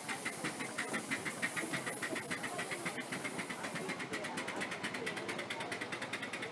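Miniature live steam locomotive train passing: quick, even steam exhaust beats over a hiss, then, from about four seconds in, a rapid regular clicking of the passenger cars' wheels running over the track.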